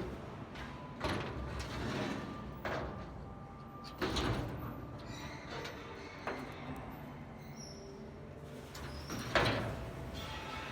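Irregular knocks and clunks, about five over ten seconds, the loudest about four seconds in and just after nine seconds in, over a steady low rumble.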